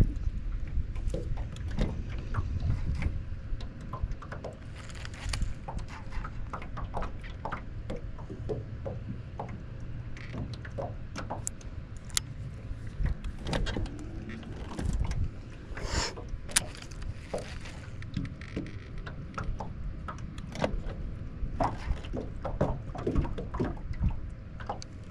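Small waves lapping and knocking against an aluminum jon boat's hull, with many scattered light clicks and taps over a steady low rumble. A faint steady hum runs underneath.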